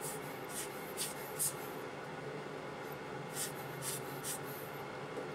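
A micrometer being worked against a steel crank web to measure its thickness: several short, high scraping sounds of metal sliding and the thimble being turned, over a steady faint hum.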